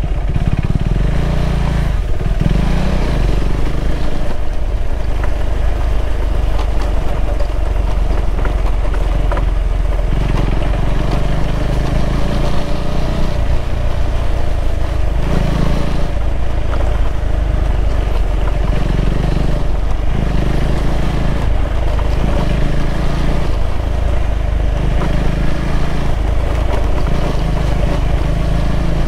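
KTM 390 Adventure's single-cylinder engine running under way on a trail, its note swelling and easing every second or two with the throttle, over a steady low wind rumble on the microphone.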